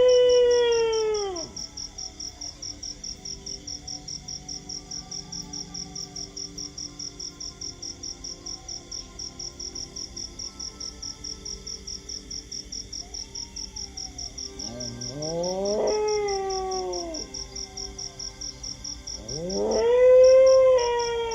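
Dogs howling: long howls that rise and then fall in pitch, one at the start, one about fifteen seconds in and one near the end, with fainter howls between. A steady high insect chirping, about four pulses a second, runs beneath.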